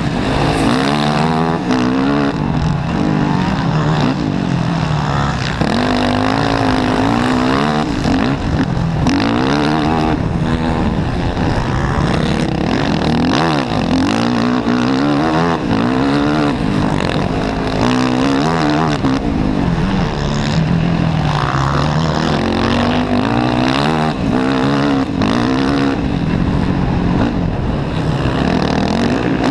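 Racing quad engine heard from the rider's helmet, revving up and falling back over and over as it is ridden hard.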